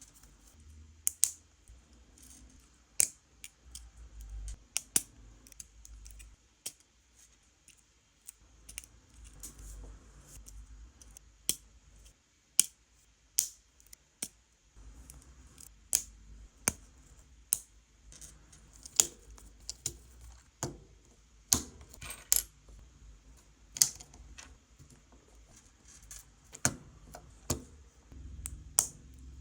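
Small plastic building bricks clicking and clacking as loose pieces are picked over and snapped together, in irregular sharp clicks with a faint handling rumble beneath.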